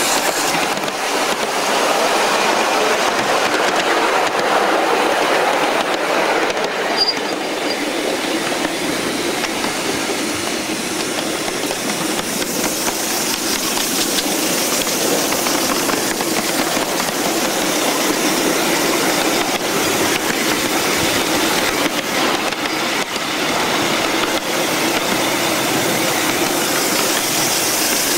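Live-steam Shay geared locomotive, a ride-on scale model, running along the track with its exhaust chuffing and its wheels clacking over the rails.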